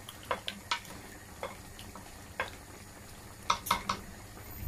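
A spoon clinking and scraping against the side of a pressure cooker pot while stirring a wet mutton mixture: a handful of short, irregular knocks, with a quick run of three near the end.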